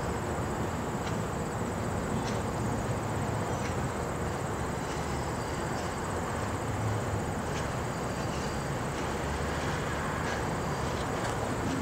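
Diesel locomotive running at low throttle on a yard job with intermodal cars, a steady low rumble throughout. Faint scattered ticks and thin high chirps sit over it.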